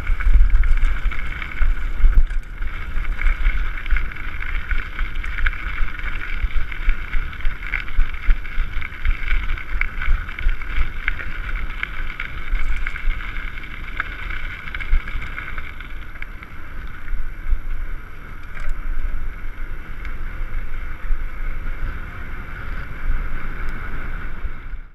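Wind buffeting the microphone of a camera riding on a mountain bike at speed downhill, with the tyres and bike rattling over a rough dirt track. A steady high whirr runs under it, and the sound drops away at the very end.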